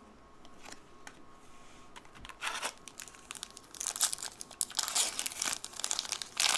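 Foil wrapper of an Upper Deck hockey card pack crinkling and tearing as it is opened by hand. After a couple of seconds of faint ticks from cards being handled, the crackling starts and grows louder about two-thirds of the way through.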